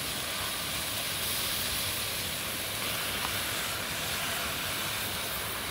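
Steady rushing hiss of a river flowing, even and unchanging throughout.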